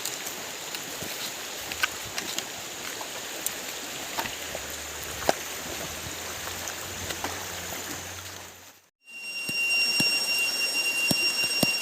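Stream water running steadily, with scattered small clicks. About nine seconds in it cuts out, and a louder hiss follows with steady high-pitched tones.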